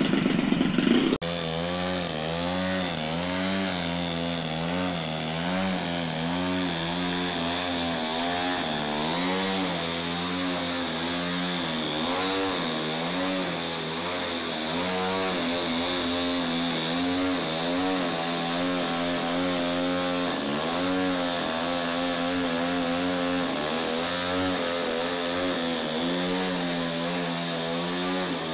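Petrol engine and propeller of a giant RC aerobatic plane holding a hover, its pitch rising and falling over and over as the throttle is worked to keep the plane hanging on the prop.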